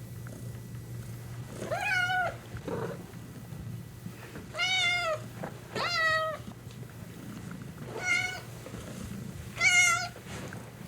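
Domestic cat meowing five times, each meow about half a second long, high-pitched and arching up then down, with short pauses between.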